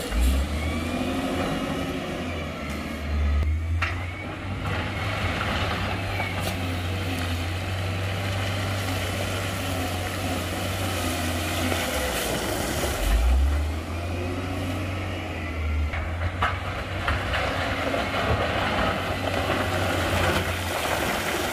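Diesel engine of heavy earthmoving equipment working under load, its revs rising and falling, with a few sharp knocks.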